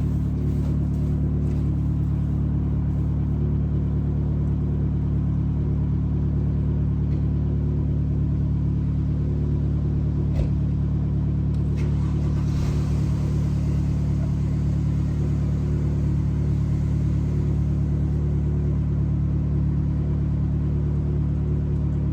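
Car engine idling steadily, with no revving, and a brief knock about ten seconds in.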